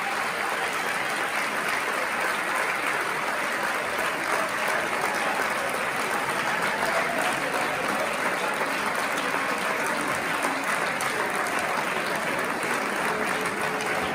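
Theatre audience applauding steadily, with a few voices mixed in.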